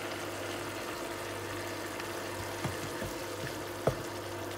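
Beef strips simmering in a little sauce in a pan, stirred with a wooden spatula that knocks against the pan a few times, the sharpest knock near the end. A steady low hum runs underneath.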